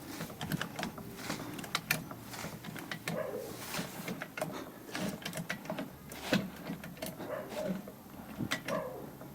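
Car jack being worked to lift the car: a series of irregular metallic clicks and knocks with some brief scraping.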